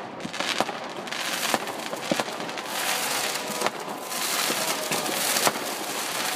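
Fireworks and firecrackers going off all around: many sharp cracks and pops in quick succession over a continuous crackle.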